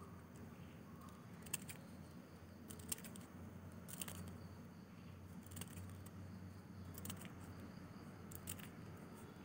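Steel scissors snipping thin notebook paper into short strips: faint, sharp snips about every second or two.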